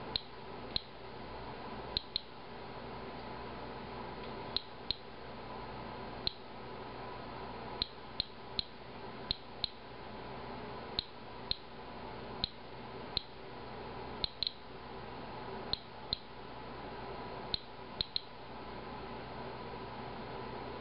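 Inspector Alert Geiger counter clicking once for each detected count, short sharp clicks at random spacing, about one a second, over a faint steady hum. It is counting radiation from a sample of Japanese green tea, at a rate the tester reads as well past background.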